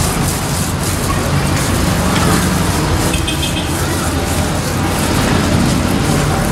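Steady street traffic noise with engines running and a constant low hum, and a brief high beep about three seconds in.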